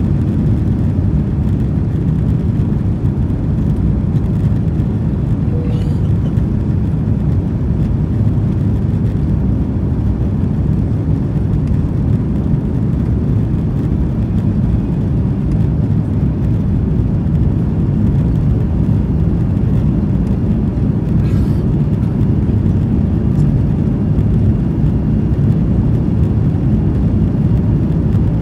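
Cabin noise of an Airbus A330-300 with Rolls-Royce Trent 700 engines at takeoff power: a loud, steady low rumble of engines and airflow as the jet lifts off and climbs.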